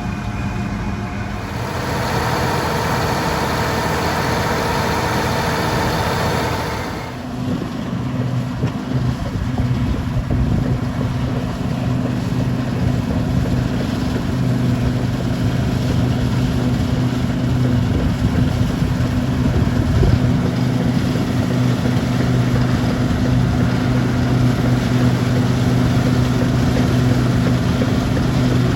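Diesel engines of harvest machinery running steadily: one engine sound with higher-pitched tones gives way abruptly about seven seconds in to a deeper, steady engine hum.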